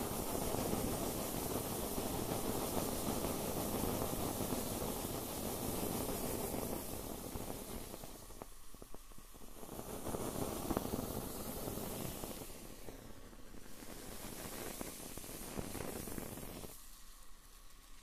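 Marshmallows on a skewer burning in a flame: a steady hiss that breaks off briefly about halfway through and fades near the end.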